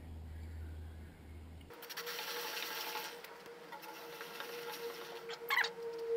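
Aerosol chain cleaner spraying onto a motorcycle chain: a steady hiss that starts abruptly about two seconds in, after a low hum cuts off. A few light clicks come near the end.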